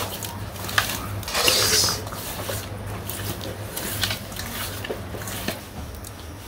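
Hands rubbing spice-coated raw fish pieces in a stainless-steel bowl: soft wet squishing, with small clicks of fish and fingers against the metal and a louder scrape about one and a half seconds in.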